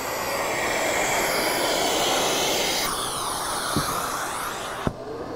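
A Festool CT 36 dust extractor runs with a steady rushing hiss of air through its hose. About three seconds in, the hose is pulled off the saw's dust port and the airflow sound shifts, with sweeping tones. A sharp click near the end is followed by the high hiss dropping away.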